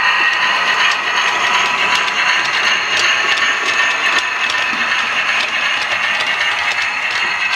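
Model railway train, a V2 locomotive hauling a rake of coaches, running along the track: a steady mechanical whirr and rattle of motor and wheels, with small clicks.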